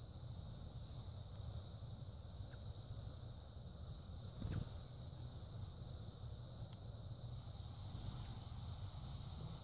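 Outdoor ambience: a steady high insect trill over a low background rumble, with short faint high chirps and a single sharp knock about four and a half seconds in.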